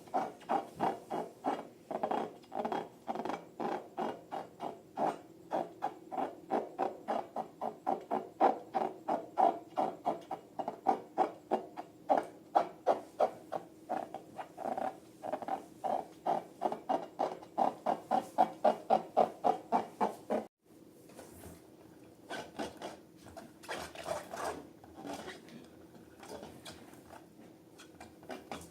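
Hands working rubber balloons and slime, making quick repeated squeaky strokes, about three to four a second. They stop abruptly about two thirds in and give way to softer, irregular handling sounds.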